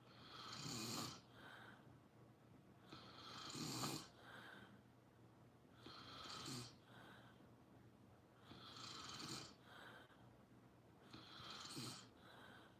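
Slow, regular snoring: five snoring breaths about every two and a half to three seconds, each a longer, louder snore followed by a shorter, softer one.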